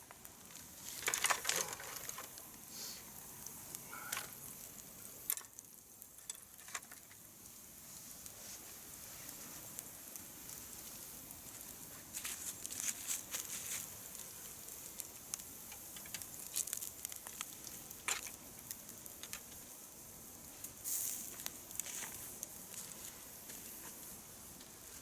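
Wood campfire crackling, with irregular sharp pops and clicks over a steady high hiss.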